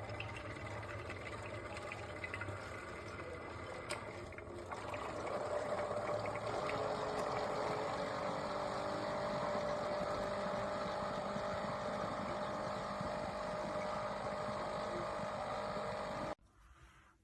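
CHULUX single-serve coffee maker brewing: its pump hums and hot water streams through into the cup. The sound grows louder about five seconds in and cuts off suddenly near the end.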